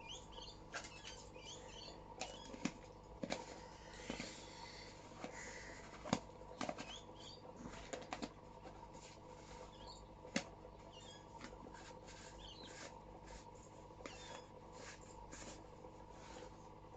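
Scattered light clicks and taps from small plastic sling containers being handled, with faint high squeaks now and then over a steady low hum.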